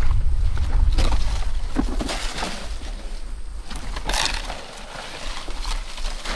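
Rustling and crunching of leaves and brush in short bursts, loudest about four seconds in, as palm fronds are handled. Wind rumbles on the microphone at the start and dies away after about a second and a half.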